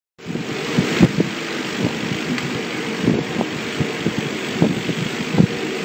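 Laser cutting machine working on a wooden board: a steady hiss of air and fan noise, with the laser head's drive motors whirring in short changing tones and irregular clicks as the head moves.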